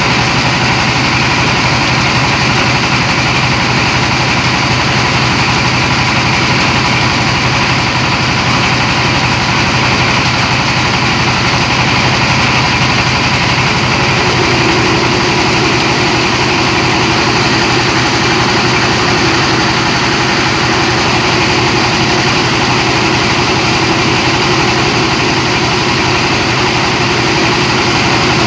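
Rice milling machine driven by a 24 hp diesel engine, running steadily under load as paddy is hulled and polished into rice. A loud, even machine noise with a steady hum, and a further steady tone joins about halfway through.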